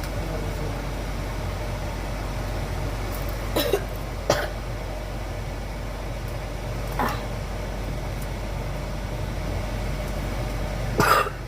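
Steady kitchen background hum with a few short knocks or clatters, and a brief cough-like sound near the end.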